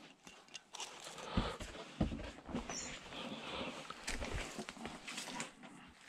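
Footsteps and scuffing on rocky ground: irregular rustles and clicks with a few soft low thumps, as someone picks their way down toward a cave.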